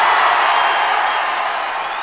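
Muffled crowd din of many voices at once, with no clear words, slowly fading.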